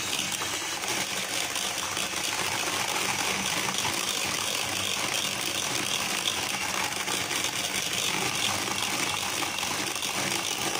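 Electric hand mixer running steadily, its two wire beaters whisking a thin, runny egg batter in a bowl.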